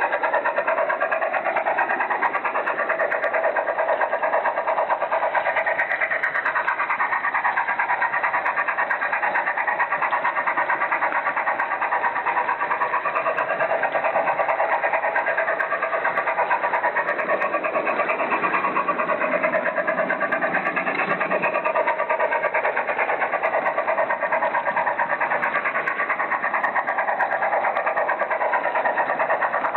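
Märklin model trains running on the track: a steady whir and fine rattle from the electric motors, gears and wheels on the rails, with a whine that slides up and down in pitch as the speed changes.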